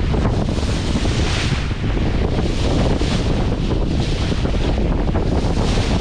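Strong wind buffeting the microphone on a sailboat under sail, with a heavy low rumble and the rush of water swelling every second or two.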